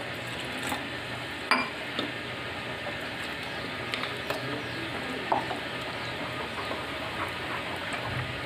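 Plastic spoon stirring thick batter in a glass bowl, with occasional clicks of the spoon against the glass.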